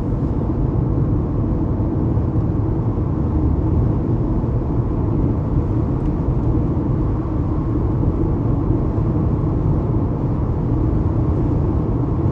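Steady low rumble of a car being driven: road and engine noise with no sudden events.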